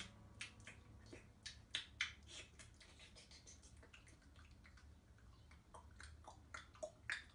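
Near silence: room tone with a low hum and faint irregular clicks and taps, a few a second, one a little louder near the end.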